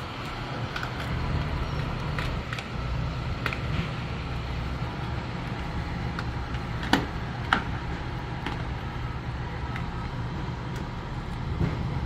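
Vehicle engine running steadily at idle, with scattered light clicks and two sharp knocks about half a second apart near the middle.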